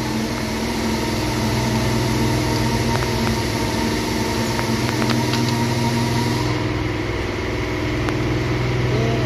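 An engine idling steadily, with a few faint clicks from hand work on the transmission.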